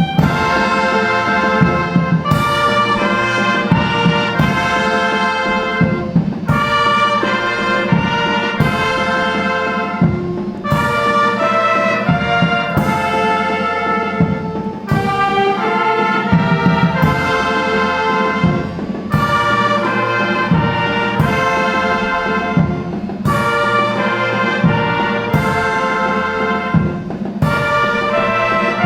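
Brass music, with trumpets and trombones playing full chords and a fresh accented attack about every two seconds.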